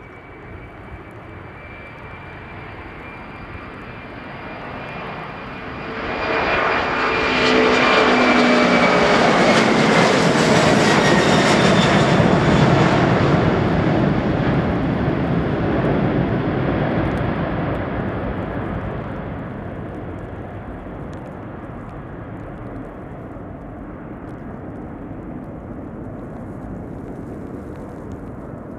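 Boeing 767-300 jet engines at take-off power as the airliner climbs out past the listener. The roar builds, jumps sharply about six seconds in and peaks as the aircraft goes by, with a high whine and lower tones falling in pitch. It then fades to a steady distant rumble.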